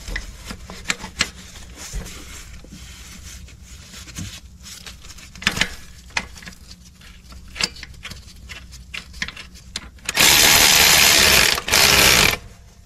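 Scattered clicks and knocks of hand tools and parts while the AC compressor drive belt is fitted, then two loud bursts of a power tool, one of about a second and a half roughly ten seconds in and a shorter one soon after.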